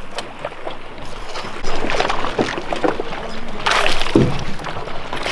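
Water splashing as a hooked striped bass thrashes at the surface and is lifted out beside the boat, with the loudest splash about three and a half seconds in.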